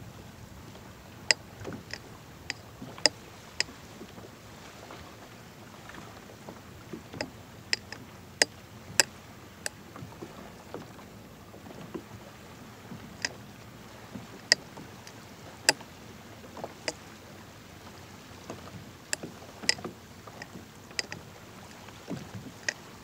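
Small waves slapping against a kayak hull in short, sharp knocks at irregular intervals, over a low, steady wash of water and wind.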